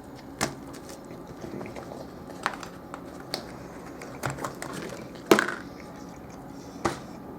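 A person chewing and biting into a large cheeseburger, with scattered short sharp clicks and crackles, the loudest about five seconds in.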